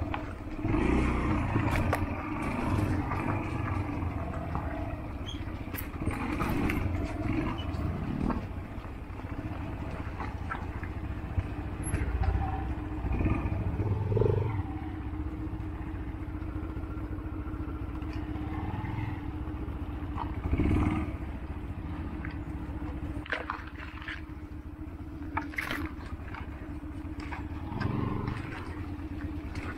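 Yamaha XTZ 125's single-cylinder four-stroke engine running at low revs over a rough dirt trail, surging with the throttle every few seconds. Occasional knocks and rattles come from the bike on the bumps.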